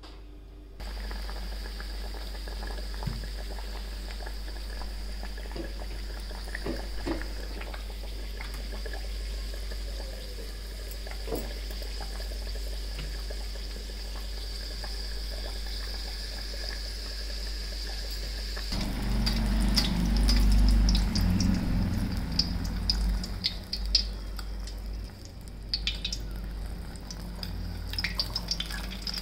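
Maida dough tokri deep-frying in hot oil in a wok: a steady sizzling hiss, with sharp crackles coming thick in the last few seconds. A louder low rumble sounds for a few seconds just past the middle.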